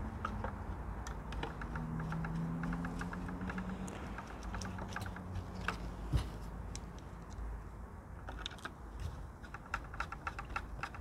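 Runs of small quick clicks and ticks as self-cutting screws are turned with a hand screwdriver into a Mitsubishi 3000GT door mirror's motor mount. There are scattered clinks in between as loose screws are handled.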